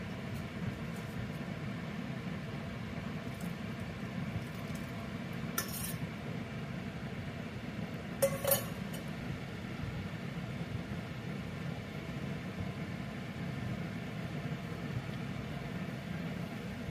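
Stainless-steel utensils clinking against a steel pressure cooker: a light clink about six seconds in and a louder double clink about two seconds later. A steady low hum runs underneath.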